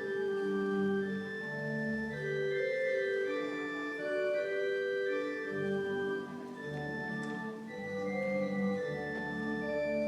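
Organ playing slow, held chords with a moving melody on top, low bass notes coming in and dropping out every few seconds.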